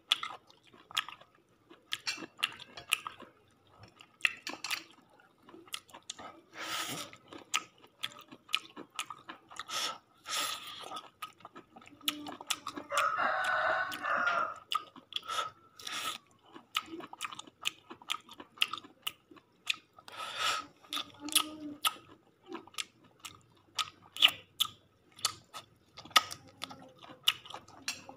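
Close-up eating sounds from people eating chicken by hand: chewing and lip-smacking, with many short, irregular wet clicks and crunches. About halfway through, a drawn-out call lasting about two seconds rises over the chewing.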